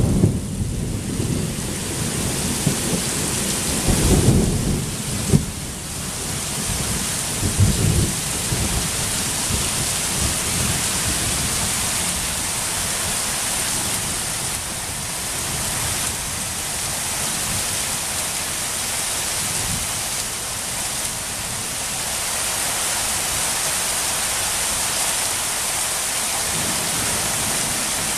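Heavy rain falling steadily through a thunderstorm, with rumbles of thunder in the first eight seconds or so: one at the start, another about four seconds in with a sharp clap, and a last one about eight seconds in.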